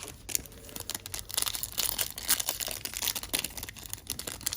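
Foil wrapper of a trading-card pack crinkling and tearing as it is ripped open: a dense, irregular run of crackles.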